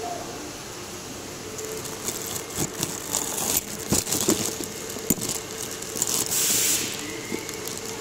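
Clear plastic wrap crinkling and nylon garage door rollers on zinc-plated steel stems knocking together as a bundle of them is handled, with scattered sharp clicks and a louder stretch of crinkling about six seconds in.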